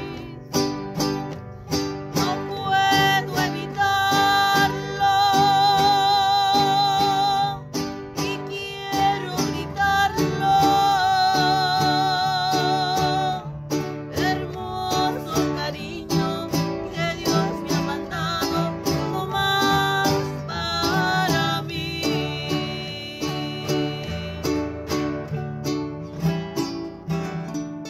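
Three acoustic guitars strummed together in a folk song, with a woman singing long held notes with vibrato in phrases and pausing between them.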